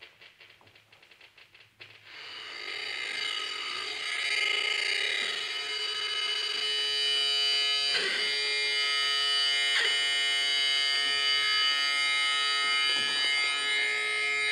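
Live electronic music from Exo.Rosie, a wearable electronic instrument. Faint rapid ticking gives way about two seconds in to a dense, swelling drone of many held tones, with two sharp clicks about eight and ten seconds in.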